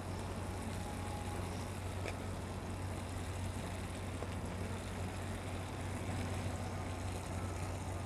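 Steady low hum with a faint, even hiss underneath and no distinct events.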